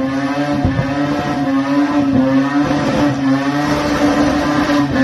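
A modified car engine held at steady high revs, its pitch wavering only slightly.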